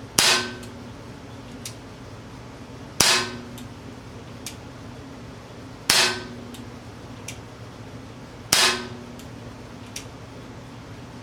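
Umarex Glock 19 CO2 BB pistol firing four single shots, about three seconds apart: each a sharp pop with a brief ringing tail.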